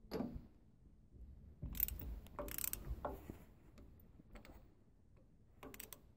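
Socket ratchet clicking and clanking on 9/16 bolts of a hydraulic cylinder as they are loosened. There is a sudden clank right at the start, a louder stretch of clicking and scraping about two to three seconds in, and a few more clicks near the end.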